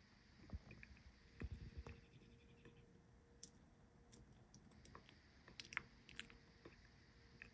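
Faint, scattered clicks and light crunches of a metal spoon against crushed ice and jelly in a glass dish, with a few soft knocks about a second and a half in and a small cluster of clicks near six seconds.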